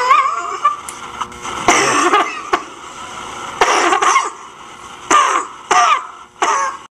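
Human coughing in about six bouts, a second or two apart: the recorded cough that the anti-smoking coughing poster plays.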